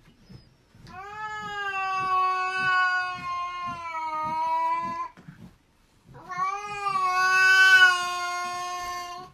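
A cat meowing in two long, drawn-out calls of about four seconds each, with a short break between them.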